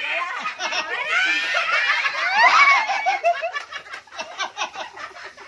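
Several people laughing hard together, overlapping voices with high, swooping shrieks of laughter, then breaking into quick rhythmic 'ha-ha' pulses after about three seconds.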